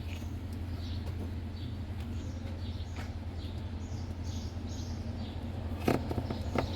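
Small birds chirping repeatedly over a steady low hum, with two sharp clicks near the end as the refrigerator's wiring connectors are handled.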